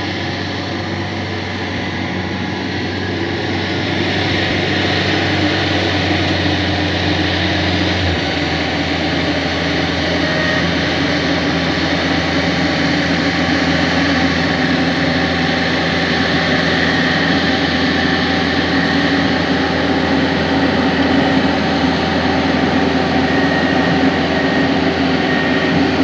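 Yanmar YH-series rice combine harvester running, its diesel engine and threshing machinery giving a loud, steady drone with a low note that shifts about eight seconds in.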